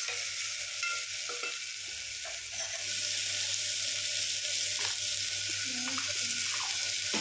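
Chopped onions, potatoes and spices sizzling in oil in an open pressure cooker, with a spoon stirring them and lightly knocking against the pot.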